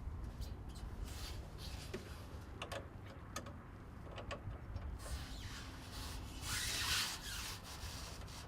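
Excavator service access door being handled: scattered clicks and knocks of the latch and panel, then a longer rubbing scrape late on, over a low steady rumble.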